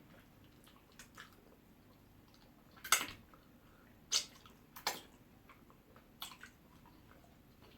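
Close-up eating sounds of pounded yam with slimy ogbono soup: a handful of short, wet smacks and squelches, the loudest about three seconds in.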